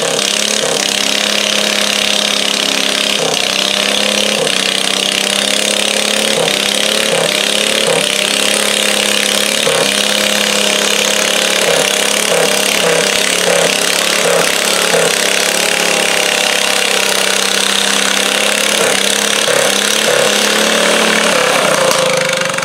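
Ford garden tractor's engine running flat out under load as it drags a pulling sled, its note wavering with a few brief stumbles midway, then easing off at the very end as the pull finishes.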